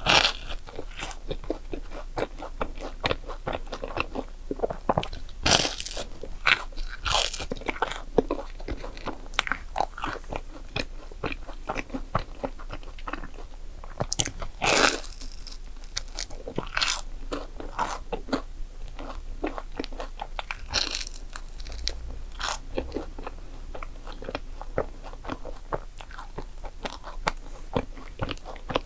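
Close-up bites into and chewing of a crisp croissant waffle (croffle) topped with whipped cream and chocolate: crackly chewing, broken by a handful of louder crunches.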